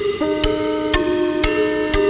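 Electronic background music: held synth chords over a steady beat of about two strokes a second.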